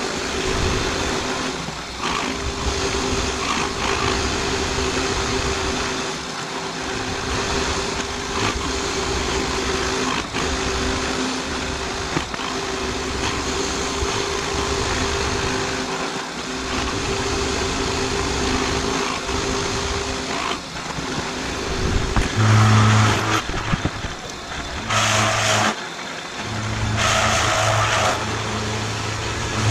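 Round-column mill-drill running, its end mill cutting along the edge of a steel batwing bracket: a steady motor hum with cutting noise. Late on, the hum turns lower, with two short louder bursts.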